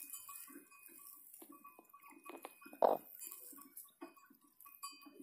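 Broody hen clucking softly in a steady run of short, low clucks, a few a second, while sitting over her chicks. One louder sound stands out about three seconds in.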